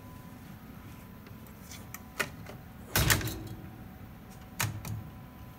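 Metal clicks and clunks as the steel chassis of a Wincor Nixdorf ATM module is worked free of its frame: a sharp click about two seconds in, a louder clatter with brief ringing around three seconds, and another clunk near the end.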